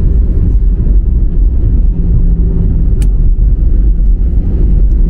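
Cabin noise of an Airbus A320 rolling on the ground after landing: a loud, steady low rumble from its CFM56 engines and the wheels on the concrete, with a faint hum that comes and goes and a single click about three seconds in.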